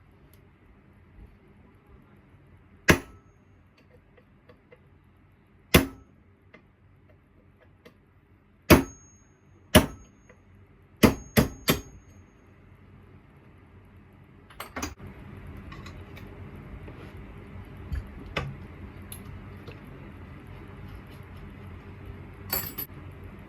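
Sharp metal-on-metal clanks with brief ringing as tools and parts strike the engine's metal parts: seven in about nine seconds, the last three in quick succession. From about two-thirds of the way through, a low steady noise comes in with a few lighter knocks.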